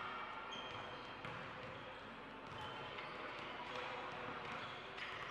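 Basketball game sounds: sneakers squeaking on the court in short chirps and a few knocks of the ball, over a background murmur of voices.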